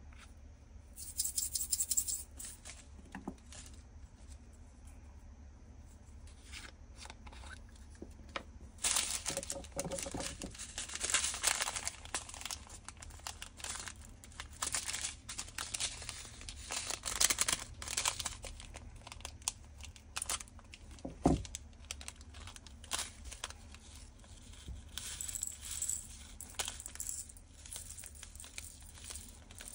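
Crinkling plastic zip bags of diamond-painting drills, with light clicks and rattles from small plastic bead bottles being handled as the drills are transferred into them. There is one sharper knock about two-thirds of the way through.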